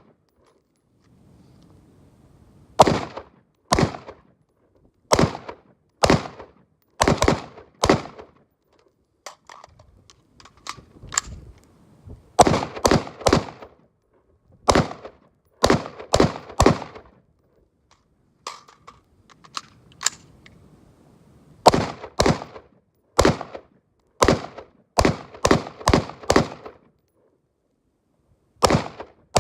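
Daniel Defense Mk18 AR pistol firing 5.56 rounds semi-automatically: about two dozen sharp shots in singles and quick strings of two to four, with short pauses between strings. Wind rumbles on the microphone in some of the pauses.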